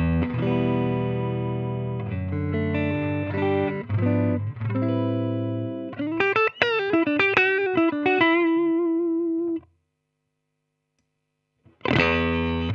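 Electric guitar played through an AmS Hurricane 20 combo amplifier with some distortion: held, ringing chords, then a quick lead phrase ending on a sustained note with vibrato that stops abruptly. After about two seconds of silence, chords start again near the end.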